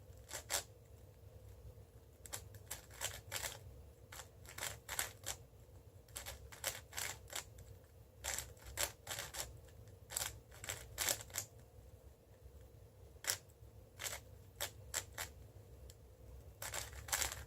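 5x5 speedcube (Cubicle WuShuang M) being turned quickly by hand: plastic layers clicking and clacking in irregular bursts of several turns with short pauses between.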